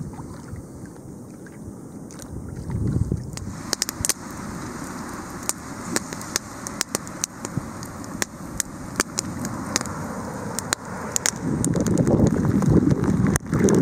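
Faint wind and water noise, then from about three and a half seconds in a wood campfire crackling with many sharp snaps and pops. Near the end a louder rush of wind and choppy water takes over.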